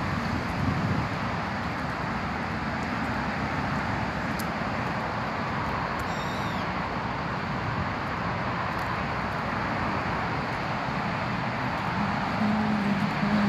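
Steady hiss of road traffic beyond the trees, with a short high bird call, falling in pitch, about six seconds in.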